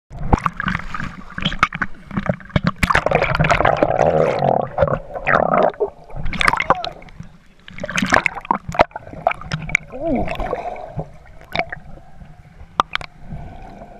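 Swimmers' splashing and bubbling heard underwater through a GoPro's waterproof housing, muffled and broken by many sharp clicks and knocks. It is busiest in the first half and thins out toward the end.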